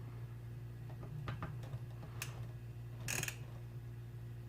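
A few sharp, irregular clicks of a hand screwdriver with a Torx bit working the screws on a fuel pump sending unit, with a short scraping rasp about three seconds in, over a steady low hum.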